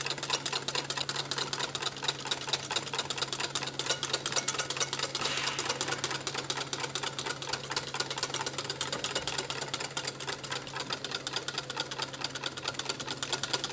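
Wire balloon whisk beating double cream by hand in a stainless steel bowl: a rapid, even rattle of wire against metal as the cream thickens. A steady low hum runs underneath.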